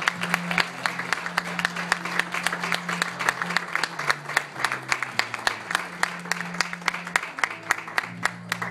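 Audience applauding, with sharp claps close to the microphone about five or six a second. Soft background music with held low notes plays underneath. The applause stops abruptly at the end.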